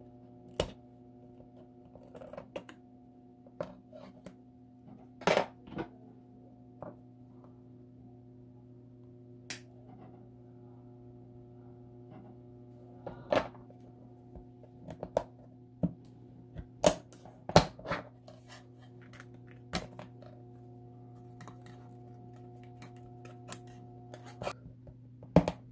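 Irregular sharp clicks and snaps of a hobby knife and flush cutters cutting through the small tabs that hold laser-cut wooden parts in their sheet, over a steady low hum that stops near the end.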